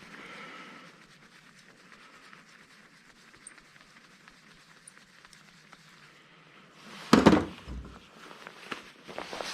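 Light handling clicks and rustling of scrap parts, then a single loud clunk about seven seconds in, followed by a few lighter clicks.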